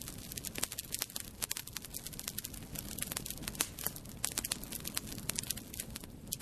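Fire crackling: a dense, irregular stream of sharp pops and snaps over a steady low rumble of flame, starting abruptly.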